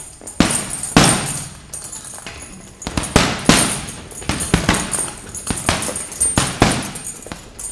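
Gloved punches landing on a hanging heavy punching bag: about a dozen sharp hits in quick, irregular combinations, the loudest about a second in.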